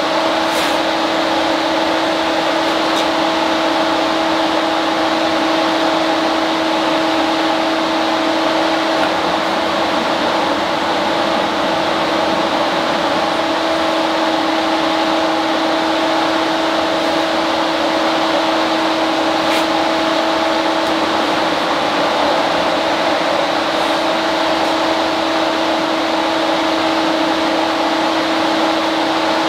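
A steady machine drone, an even whir with a constant low hum through it that never changes, and a couple of faint ticks.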